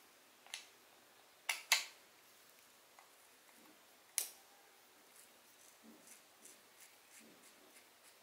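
Sharp clicks and taps from a spinning fishing reel and its small parts being handled during repair: four louder clicks in the first half (two close together about a second and a half in), then a run of faint, evenly spaced ticks about three a second.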